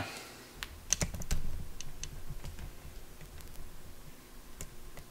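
Scattered light clicks and taps from hands handling test equipment and tools on an electronics workbench, with a low handling rumble in the first couple of seconds; the clicks are densest about a second in, with one more near the end.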